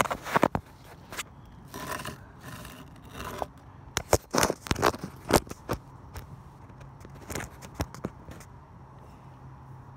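Handling noise of a handheld phone: fingers rubbing and knocking on the body close to the microphone, giving irregular scrapes and sharp clicks. They come thickest about four to five seconds in, then thin out to a few fainter rubs.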